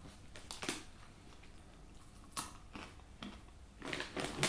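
Faint, irregular crunches and clicks of dried vendace dog treats, with a cluster of them near the end.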